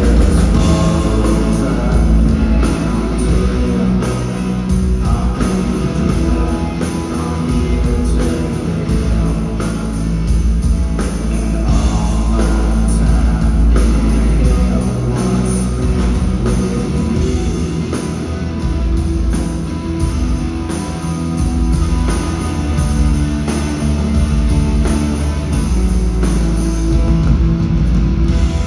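Alternative rock band playing live, heard from the audience: electric guitars, bass and drums with a singer's voice over them, loud and steady throughout.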